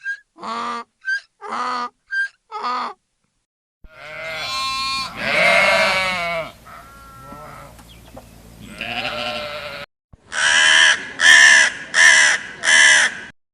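Short caws of a crow, then a long wavering bleat and a second, shorter bleat from a farm animal, then four loud caws in quick succession.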